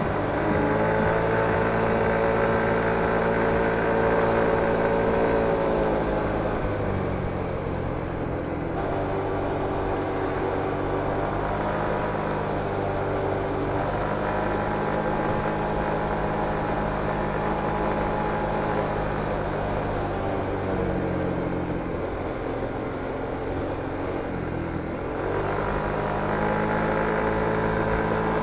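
Motor scooter's small engine running under way, holding a steady pitch under throttle and falling back as the throttle is eased, about six seconds in and again about twenty seconds in, before picking up again near the end.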